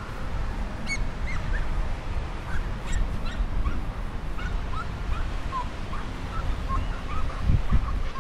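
Wind buffeting the microphone in a low rumble, with a loud gust near the end, under a flock of birds giving many short calls, several a second.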